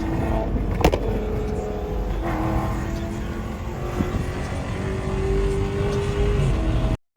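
Dodge Charger Scat Pack's 392 HEMI V8 running under way, with a sharp exhaust crack about a second in. The sound cuts off abruptly near the end.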